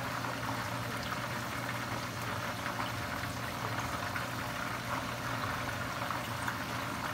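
Battered chicken deep-frying in hot oil on the stove, a steady sizzle full of fine crackles, over a low steady hum.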